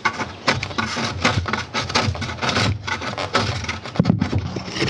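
A knife cutting and scraping loose carbon-fibre strands off the edge of a carbon-fibre rally fairing: a quick, irregular series of short scrapes and crackles.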